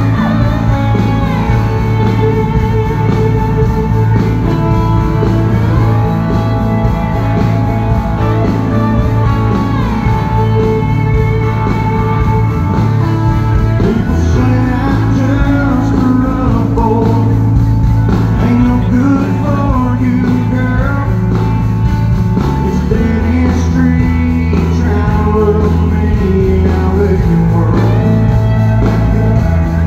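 A live country band playing at full volume, with electric guitars, bass and drums, and a lead vocal singing over them.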